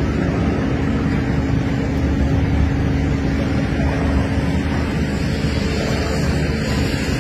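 Engine running steadily, a constant hum over a low rumble.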